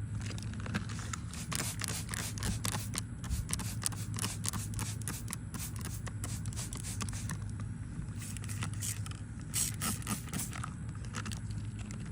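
Irregular scratchy clicks and crackles from the sprayed chainsaw air filter and its handling while the cleaner soaks in, over a steady low hum.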